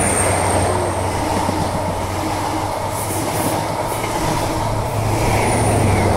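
A test train hauled by Class 43 HST power cars running past, with a steady diesel hum and rumbling wheel and rail noise. A faint high whistle sounds at the start and again near the end.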